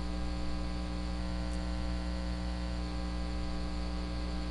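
Steady electrical mains hum with a buzz of overtones and a constant hiss underneath, picked up by the recording setup.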